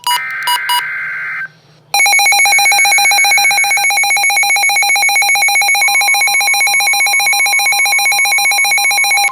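Emergency Alert System SAME header on NOAA Weather Radio: a screechy burst of digital data tones for about a second and a half. From about two seconds in, a loud, rapidly pulsing electronic alert tone follows, marking the start of a new warning. A fainter steady tone joins it about six seconds in.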